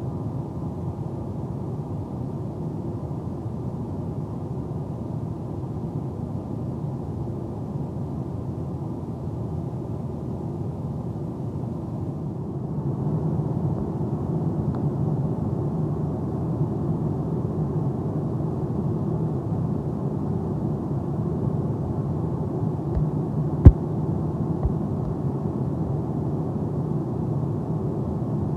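Steady cabin noise of a Boeing 787-9 in cruise: an even low rush of airflow and engine drone. A single sharp knock stands out about two-thirds of the way through, with a fainter one a second later.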